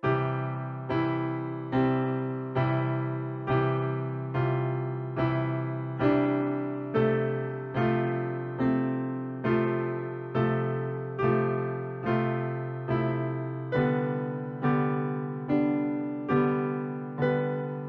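Background piano music: notes struck at an even pace, a little more than once a second, each fading before the next, over a held low bass note that shifts about three-quarters of the way through.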